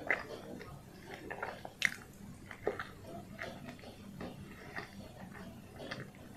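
Close-miked chewing of a soft steamed bun (pau kacang kukus), with wet mouth clicks and smacks. A sharper click comes about two seconds in.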